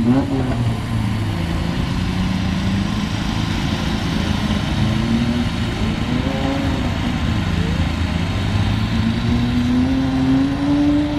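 Several autocross cars racing on a dirt track, their engines revving up and dropping back as they shift and lift for corners, with two or more engine notes overlapping. Near the end one engine note climbs steadily.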